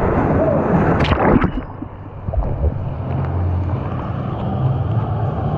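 Rushing water and wind noise on a water slide ride, with a loud splashing burst about a second in.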